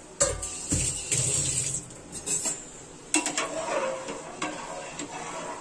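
A metal ladle clanking and scraping against a metal cooking pot while stirring boiling rice. There are sharp knocks, the loudest just after the start, then another cluster of clicks and knocks about three seconds in.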